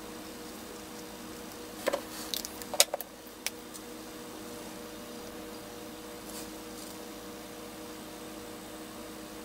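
Steady electrical hum of a fan or room equipment. About two seconds in there is a quick run of small clicks and taps from handling art supplies, and later faint scratching strokes of a marker tip on paper.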